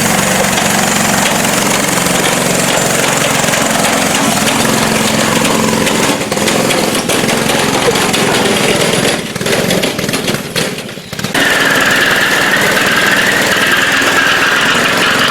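Honda 5-horsepower single-cylinder engine on a modified lawn mower, running loudly just after being fired up. The engine note drops off briefly about nine to eleven seconds in, then comes back with a higher whine over it.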